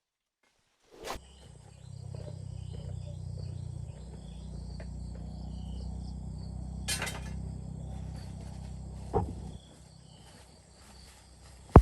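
Insects chirping and shrilling over a steady low hum, broken by a few sharp clicks or snaps, the loudest at the very end. The hum fades out about two-thirds of the way through.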